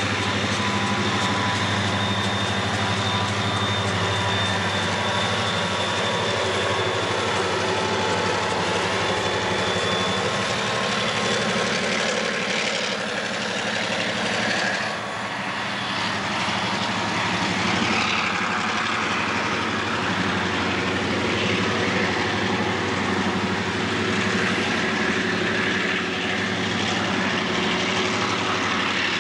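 Union Pacific diesel locomotives pass with a deep engine drone that fades over the first ten seconds or so. It gives way to the steady rumble of a coal train's cars rolling by on the rails.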